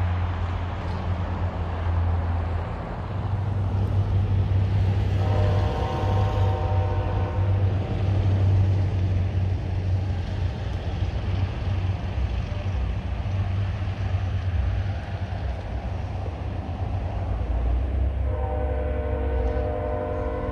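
Freight train diesel locomotives rumbling steadily, with the locomotive air horn sounding twice: a blast of about two seconds some five seconds in, and a longer one starting near the end.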